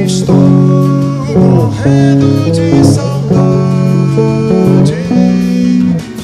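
Bossa nova music led by guitar, playing held chords that change about every half second to a second.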